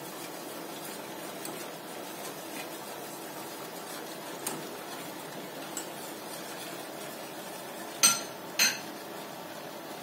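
Metal whisk stirring milk in a steel pot, with two sharp clinks of metal on metal a little after eight seconds in.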